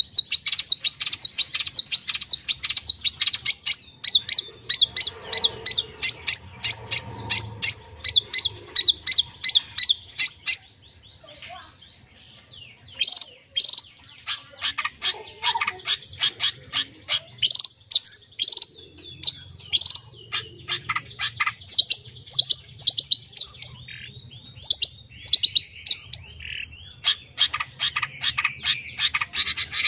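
Long-tailed shrike singing: a fast run of sharp, high repeated notes, several a second. After a brief pause about eleven seconds in, it resumes with more varied notes and a lower chattering near the end.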